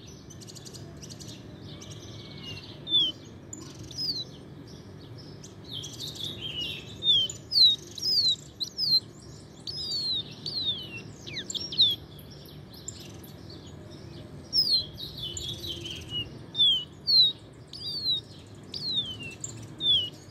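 Caged paraguayito songbird singing: phrases of quick, high, downslurred whistled notes, several a second, repeated again and again with short gaps between phrases.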